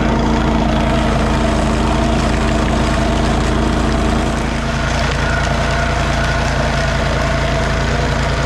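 Honda HS828 tracked snowblower's engine running steadily, out on test after its belts were replaced. Its note shifts slightly about four seconds in.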